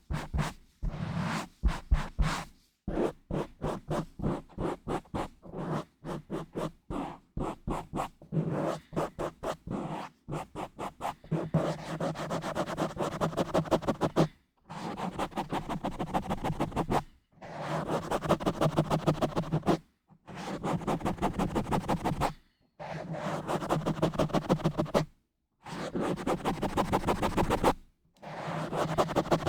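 Scratching and rubbing directly on a bare microphone. For the first third there are quick, irregular strokes; after that come bursts of fast scratching, each a couple of seconds long, with short pauses between.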